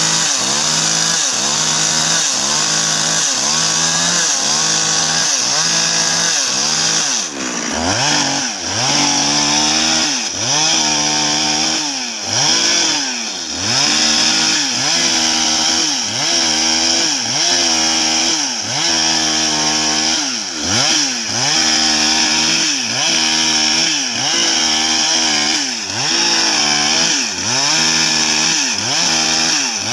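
Husqvarna two-stroke chainsaw ripping lengthwise through a bayur (litak) log, its engine pitch rising and falling about once a second as the bar is worked through the cut.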